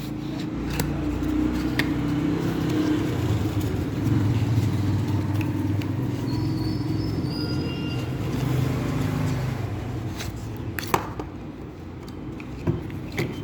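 Road traffic with a vehicle engine running steadily, a low hum throughout, broken by a few sharp clicks.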